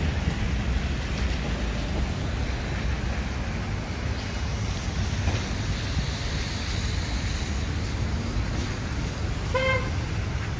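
City street traffic: a steady low rumble of passing cars and buses, with one brief horn toot near the end.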